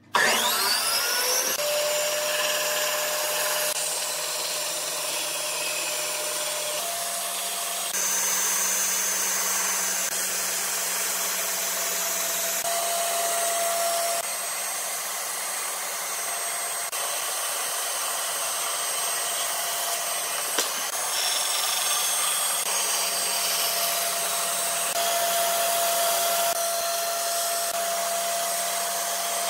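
Bandsaw switched on, its motor spinning up with a rising whine over about the first second, then running steadily as the blade cuts a curve through a pine board.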